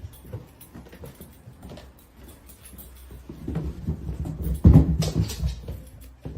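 A dog moving about: irregular scuffling and soft thumps that grow busier in the second half, with one louder thump about three quarters of the way through.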